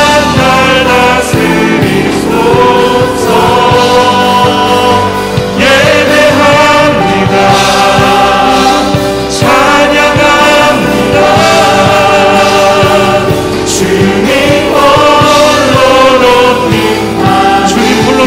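Live contemporary Christian worship song: several voices singing together with a band of acoustic guitar, keyboard and drums.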